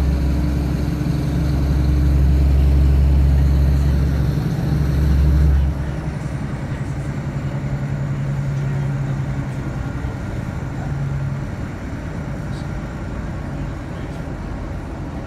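Inside a ScotRail Class 156 diesel multiple unit on the move: the underfloor Cummins diesel engine drones under power, then drops away suddenly about six seconds in as power is shut off. What is left is the quieter, steady rumble of the wheels on the rails as the train coasts.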